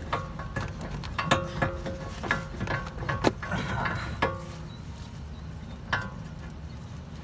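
Metal clinks and taps from a front wheel hub bearing assembly being worked into place against the steel brake dust shield, a string of them over the first four seconds and one more about six seconds in, some with a short ring.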